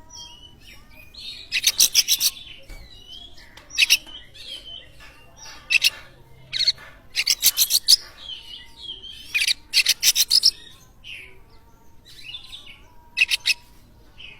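Oriental magpie-robin (kacer) singing: varied whistled warbles broken every second or two by bursts of rapid chattering notes.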